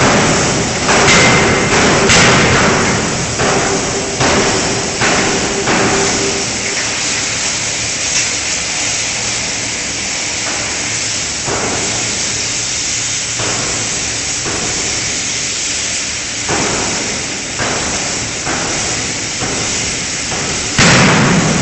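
5-ton electro-hydraulic closed-die forging hammer striking a connecting-rod forging, a quick run of sharp blows in the first six seconds, then scattered blows over steady forge-shop noise. A steady hum stops about six seconds in.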